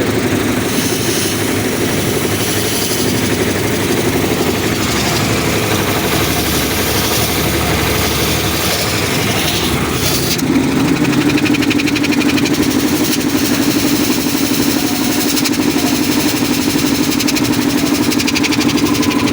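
30 HP high-pressure air compressor running loudly and steadily during a working test. About ten seconds in its note changes to a stronger, more even hum.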